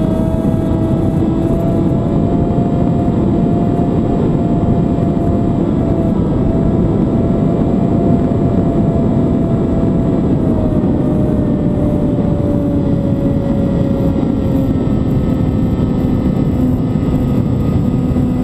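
Motor and propeller of the camera-carrying aircraft running steadily in flight, a whine under heavy wind rush; the whine slowly drops in pitch from about ten seconds in.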